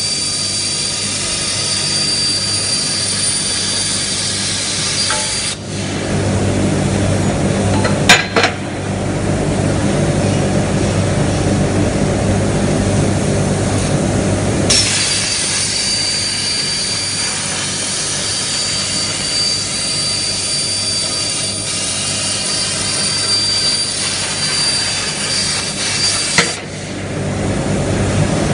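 CNC plasma cutter cutting steel: a loud hiss with a thin, steady high whine that stops about five seconds in and is replaced by a lower steady hum. There is a sharp click about eight seconds in, the hissing cut starts again about halfway through, and it stops again near the end.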